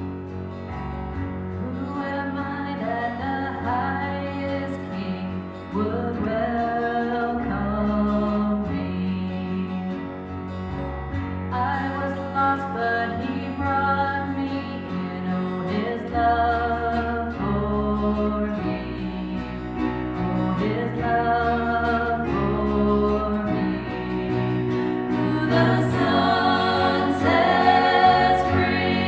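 Singing with guitar accompaniment: a song sung over strummed acoustic guitar and sustained low notes.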